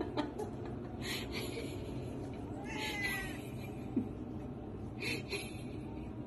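A domestic cat meowing once, a short call that rises and falls about three seconds in, with a few brief hissy noises before and after it.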